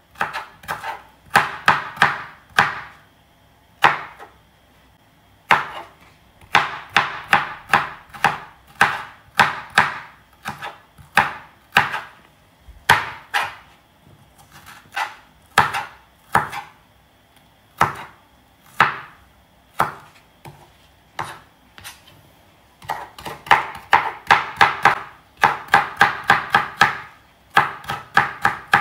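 Kitchen knife dicing bell peppers on a cutting board: quick runs of strikes, about four a second, with short pauses between runs.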